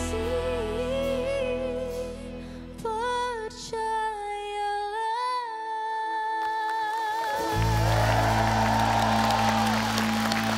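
A woman singing a slow pop ballad into a microphone with vibrato, backed by a live band. The bass drops out about five seconds in while she holds a long note, and the band comes back in about two and a half seconds later. Audience applause rises over the music near the end.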